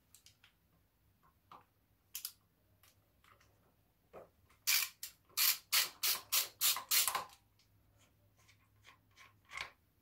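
Hand tool working loose the threaded crank access cap on a Honda CG125's side engine cover: a few light clicks, then, in the middle, a quick run of about eight short rasping strokes at roughly three a second.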